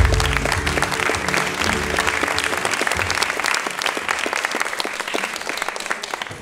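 Audience applauding, a dense clatter of clapping over the routine's music, which fades out about three and a half seconds in. The applause tapers off near the end.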